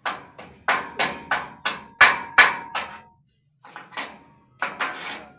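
Hammer blows on a steel solar-panel mounting frame, about three a second, each strike ringing briefly like struck steel, with a short pause partway through.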